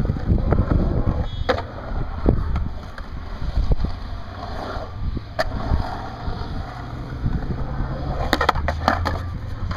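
Skateboard wheels rolling over a concrete bowl, a steady low rumble, with a few sharp clacks from the board, several of them close together near the end.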